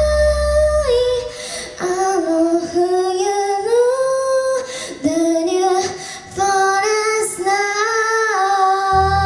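A singer's voice sings a melody alone, unaccompanied, after the band's backing drops out about a second in. The band comes back in near the end.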